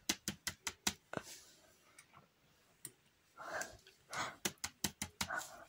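Silicone pop-it fidget toy being pressed, its bubbles popping in quick runs of sharp clicks: a fast string in the first second, a few lone pops, and another fast string near the end.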